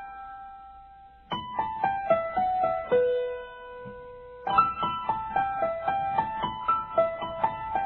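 Piano music: a gentle keyboard melody in short falling runs of notes, with one long held note and a lull in the middle before the next phrase begins.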